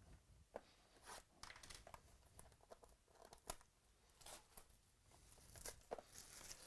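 Faint rustling, crinkling and small clicks of trading cards and their plastic and paper packaging being handled, scattered irregularly throughout.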